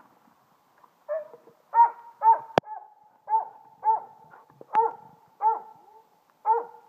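Border Collie barking over and over, about nine short, evenly spaced barks, with one sharp click in the middle.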